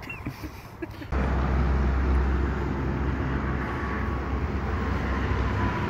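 Outdoor traffic noise with a steady low rumble that starts abruptly about a second in. In the second half a faint drone slowly falls in pitch as a distant aircraft passes.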